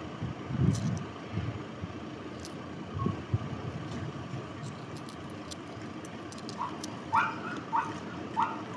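A dog yapping four short, high times in quick succession near the end, over a steady background hum, with a couple of soft low thumps before it.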